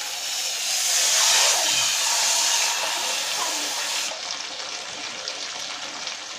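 Potatoes, bean seeds and spice paste sizzling in oil in a karai: a strong hiss for about the first four seconds, then a quieter steady sizzle.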